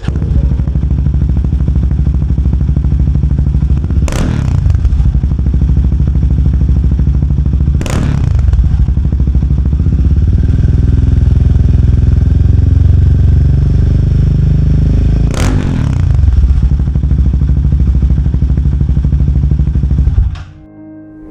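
Royal Enfield Himalayan 450's single-cylinder engine through a ZARD aftermarket exhaust with the baffle (dB killer) removed, running loudly at idle with three sharp throttle blips, about four, eight and fifteen seconds in. It cuts off abruptly near the end.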